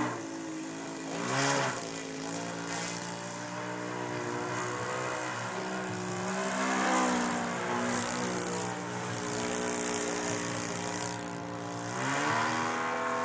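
Mojo 60 radio-control model airplane's engine and propeller running in flight overhead, its pitch rising and falling several times as the plane manoeuvres.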